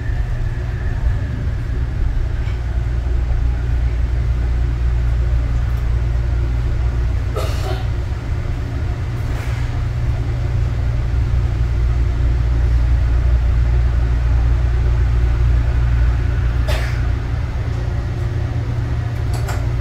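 Inside a Yongin EverLine light-rail car (Bombardier ART 200) running along the track: a steady, heavy low rumble of the running gear. Three short sharp clicks break through it, about 7.5, 9.5 and 17 seconds in, as the wheels pass over points.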